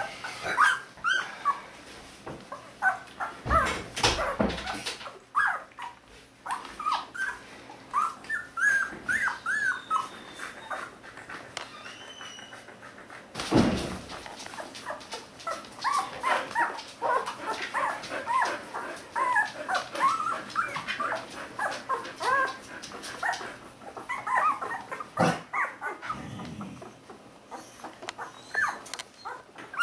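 A litter of one-week-old Border Collie puppies squeaking and whimpering, many short high cries overlapping almost without a break. A few knocks cut through, the loudest about 13 seconds in.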